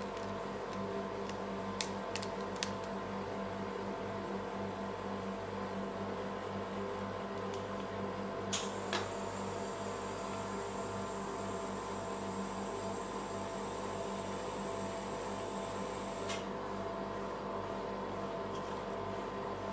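Steady hum of a rolled-ice-cream cold-plate machine's refrigeration unit, with several fixed tones in it. A few light clicks come about two seconds in and two sharper ones near nine seconds. A faint high-pitched whine runs from there until about sixteen seconds, then cuts off suddenly.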